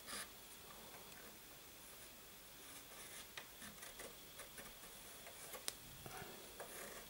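Faint pencil scratches and small ticks on a wooden board as a rounded corner is traced around the base of a small plastic bottle, with one sharper tick about five and a half seconds in.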